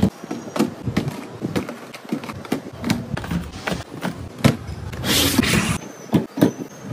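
Light taps, clicks and scrapes of cardboard Pocky boxes being set and slid into a metal wire basket, with a short sliding rustle about five seconds in. Near the end a plastic drink bottle is set down in a wire basket.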